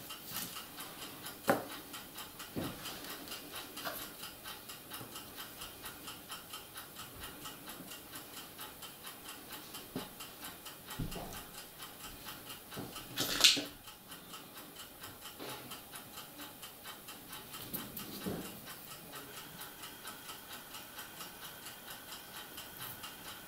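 Light clicks and taps of plastic-sleepered H0 model railway track being handled and worked on, with one sharper click about halfway through. Under it, a steady fast ticking runs at about three or four ticks a second.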